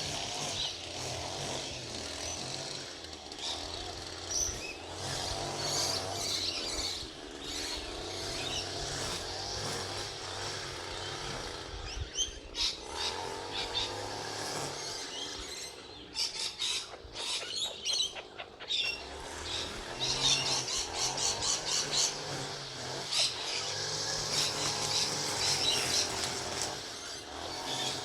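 Birds chirping and squawking in many short high calls, busier in the last third, over a low steady hum.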